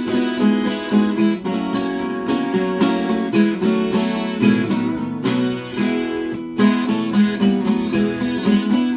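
Viola caipira (Brazilian ten-string folk guitar) strummed and picked in an instrumental passage of a sertanejo-style song, with a lower bass part coming in about halfway through.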